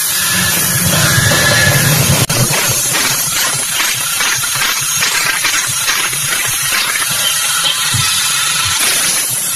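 A live band playing loud, heavily distorted music, with a fast, even beat of drum hits. The sound drops out for an instant a little over two seconds in.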